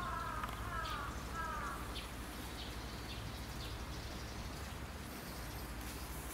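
A bird calling in a run of short, harsh, falling notes, about two a second, that stops about two seconds in. Faint high chirps follow over a steady low background hum.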